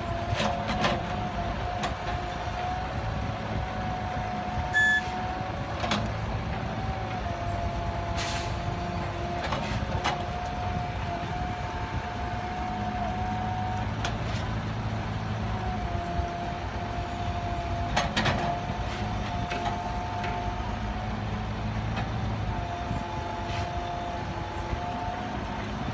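Heavy diesel construction machinery running under load, with a steady high whine that steps up and down in pitch over a low engine rumble. There are a few sharp metallic clanks and a short beep about five seconds in.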